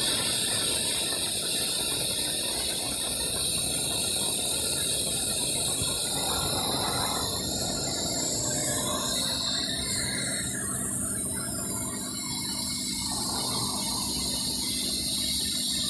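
Pneumatic vacuum oil extractor drawing used engine oil up its hose into its clear measuring chamber: a steady hiss with a rapid crackling of oil and air being sucked through. It eases slightly about two-thirds of the way through.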